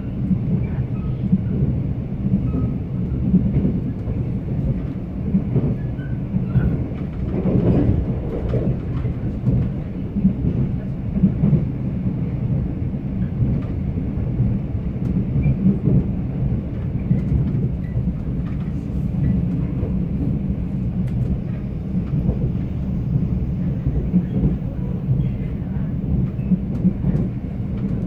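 Mugunghwa passenger train heard from inside the carriage while running: a steady low rumble of wheels on the rails, with occasional faint clicks.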